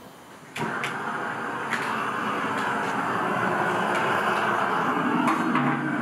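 Hose-fed gas torch lighting with a sudden start about half a second in, then running with a steady rushing roar as it is played into split oak firewood, with a few sharp clicks in the first two seconds.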